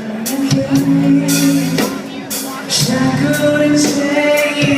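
Rock band playing: drum kit with repeated cymbal hits over held bass and guitar notes.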